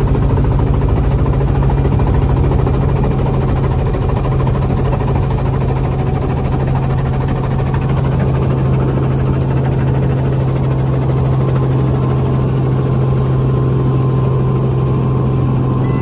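Light helicopter's engine and rotor running steadily, heard from inside the cabin as a loud, even low drone.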